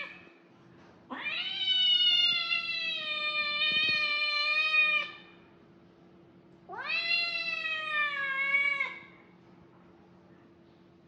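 Kitten crying out in two long, loud, high-pitched meows. The first starts about a second in and lasts about four seconds; the second is about two seconds long. Each rises sharply at the start, then holds.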